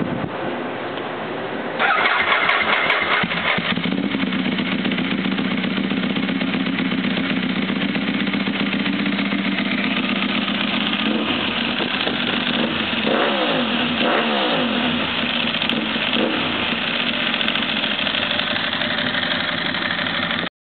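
2008 Ducati 1098's L-twin engine, breathing through a Termignoni exhaust, fires up about two seconds in. It settles into a cold idle with the dry clutch rattling. Near the middle it is given a few low-RPM throttle blips in neutral, the pitch rising and falling, then it drops back to idle.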